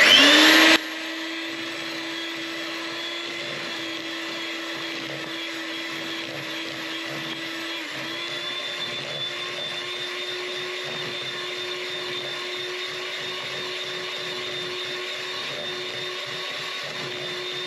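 Electric mixer mixing sponge-cake batter: the motor starts loudly and speeds up within the first second, then runs steadily with a constant whine that steps slightly higher about eight seconds in.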